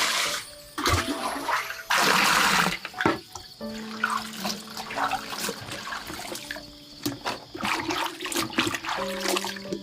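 Water rushing and splashing in uneven bursts, loudest about two seconds in, with held steady tones underneath that shift pitch from time to time.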